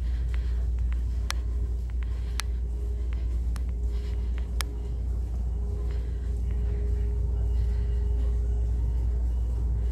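Steady low rumble with a faint steady hum, broken by a few sharp crackles in the first half that come from a faulty microphone.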